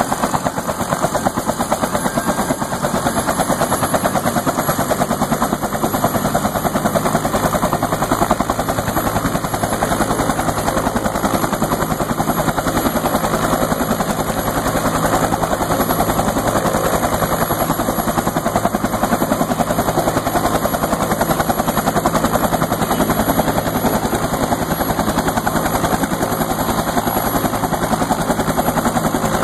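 Bell UH-1 "Huey" helicopter running, its two-blade main rotor beating in a steady, rapid, loud rhythm along with the turbine's noise.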